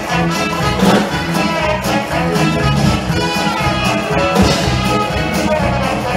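Loud band music led by brass instruments, with percussion hits.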